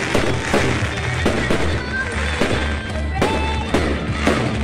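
Aerial fireworks bursting and crackling in quick succession, with sharp bangs about twice a second, while music plays.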